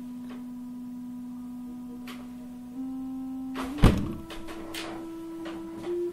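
Seeing AI light detector's steady electronic tone from an iPhone. It steps up in pitch twice, which signals that the camera is picking up more light. A thump comes about four seconds in, followed by a few faint clicks.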